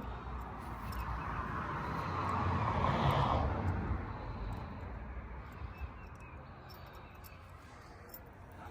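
A vehicle passing by, a rumbling rush that builds to its loudest about three seconds in and then slowly fades away.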